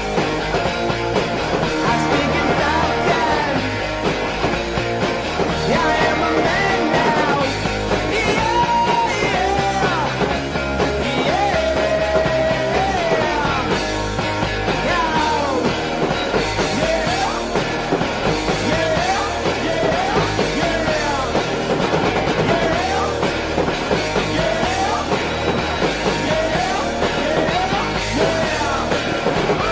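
Rock music with a singing voice over a steady beat.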